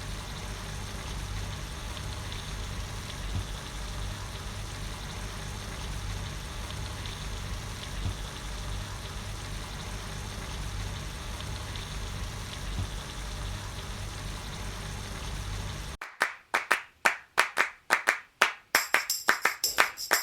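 A steady hiss over a low rumble, with a few soft clicks. About sixteen seconds in it cuts off and rhythmic music with tambourine and percussion begins.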